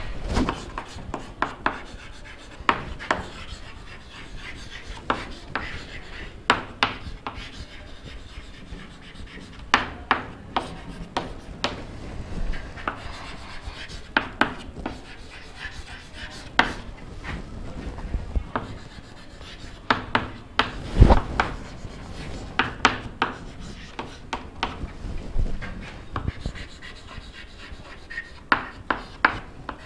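Chalk writing on a chalkboard: irregular sharp taps as the chalk strikes the board, with short scratchy strokes between them. One knock a little past two-thirds of the way through is louder than the rest.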